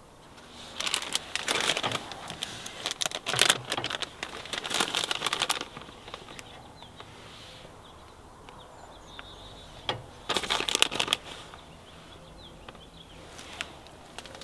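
Plastic bag of shredded cheese crinkling as it is handled, in four short bursts.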